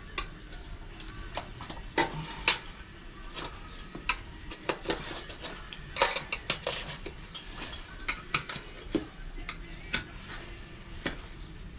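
Tire irons clinking and scraping against a dirt bike's wheel rim while the tire bead is levered off, in irregular sharp metallic clinks and knocks.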